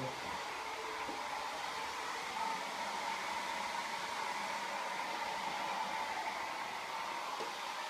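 Steady whirring hiss of a fan-type appliance running, with a faint steady whine.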